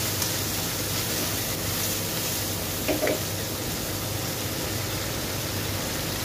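Mixed seafood sizzling in a hot nonstick wok as a spatula stirs it, a steady hiss over a low hum, with a short scrape or knock of the spatula about three seconds in.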